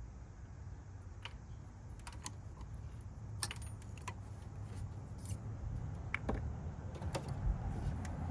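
Light metallic clicks and clinks of hand tools, a socket on a spark plug, going irregularly about a dozen times while the new plug goes into the 2006 Jeep Liberty's engine, over a low steady background rumble.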